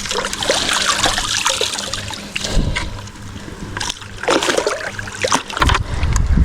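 Shallow water splashing and trickling as hands search through it, with scattered small clicks. Near the end a low rumble of wind on the microphone comes in.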